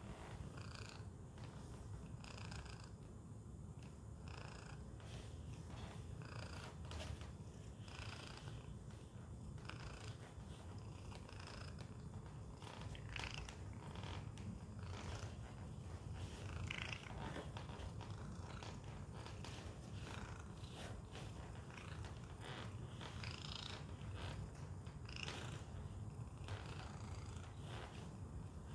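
Domestic cat purring steadily in a low continuous rumble, with short scattered licking and rustling sounds as it grooms its paw.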